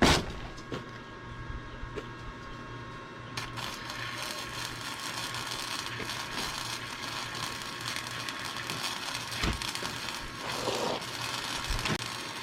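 Wire-feed welder: a steady hum, then from about three and a half seconds in the welding arc crackles and sizzles steadily while a bead is laid, stopping near the end. A sharp knock at the very start.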